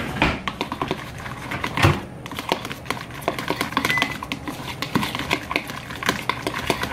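Metal fork stirring a creamy mixture in a bowl, its tines clinking and scraping against the bowl in rapid, irregular clicks, with one heavier knock a little under two seconds in.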